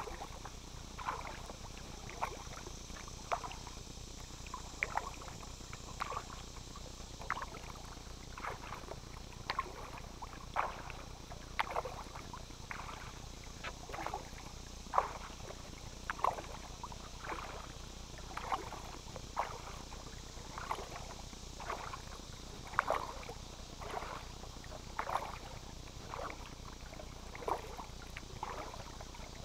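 Kayak paddle strokes in calm lake water: a short splash of the blade dipping in about once a second, in a steady rhythm.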